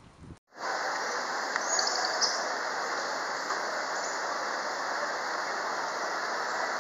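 A steady rushing roar, as of fast-flowing water, starts about half a second in after a brief dropout and holds evenly, with a faint click about two seconds in.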